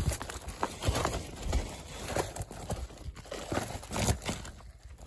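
Rustling of a woven sack with irregular knocks and slaps as freshly caught fish are handled and laid out on it; the louder knocks come about a second apart.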